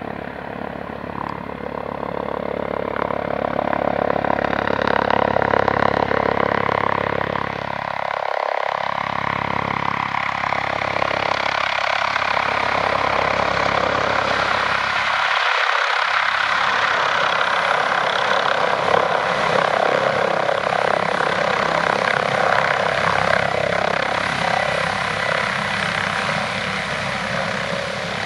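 Five-bladed Airbus H145 D3 helicopter approaching and coming down to a low hover, its rotor and turbine engines running loud and steady. It grows louder over the first few seconds.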